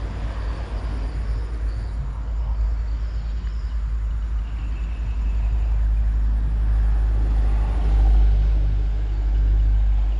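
Road traffic rumbling past: a low, steady rumble that swells as a heavy vehicle goes by, loudest about eight seconds in.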